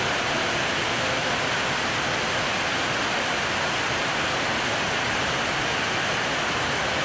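Heavy rain falling steadily on corrugated metal and tiled roofs, with water pouring off the eaves.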